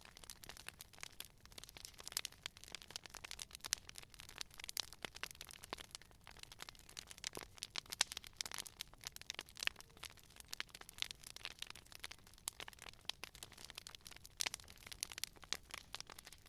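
Wood fire crackling, with dense irregular sharp pops and snaps over a faint hiss.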